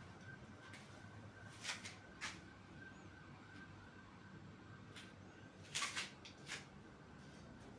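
Quiet room tone with a faint steady high whine, broken by a few brief scuffs: two about two seconds in and a cluster around six seconds in.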